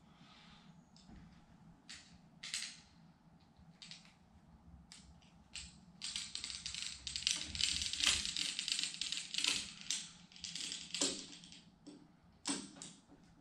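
Hand-tool work on a sliding patio door's frame: scattered clicks and taps, then about five seconds of rasping scrapes in quick strokes, ending with a few sharp clicks.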